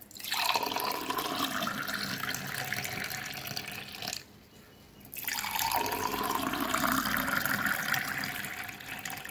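Lemon juice poured in a stream into a glass tumbler, then after a pause of about a second into a second tumbler. Each pour rises in pitch as the glass fills.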